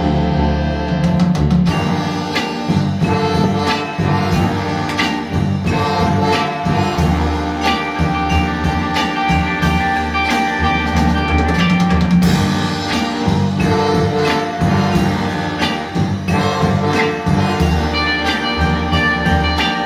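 Linn 360 loudspeakers playing an instrumental track with orchestral strings, drums and guitar over a steady pulsing bass line, picked up in the room by camera microphones.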